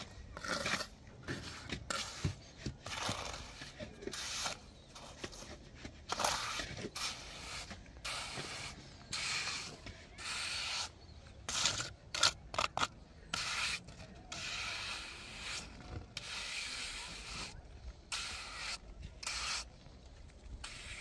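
Hand trowel scraping and smoothing wet concrete on a roof surface, in repeated irregular strokes, some long and sweeping and some short and sharp.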